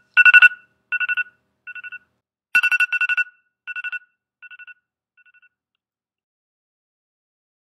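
iPhone alarm tone going off: groups of rapid two-pitch electronic beeps, growing quieter and stopping about five and a half seconds in.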